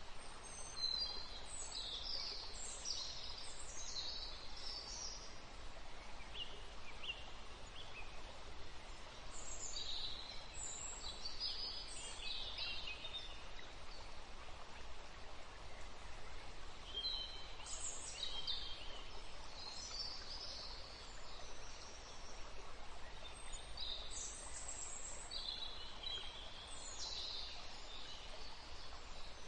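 Birds chirping in four short spells of high, twittering song several seconds apart, over a steady hiss.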